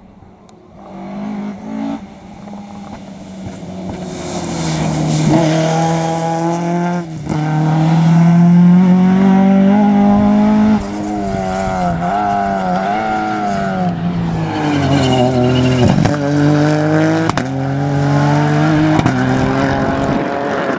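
Rally car engines working hard on a stage, loud, the note climbing in pitch and dropping sharply several times as they change gear and lift off, then climbing again.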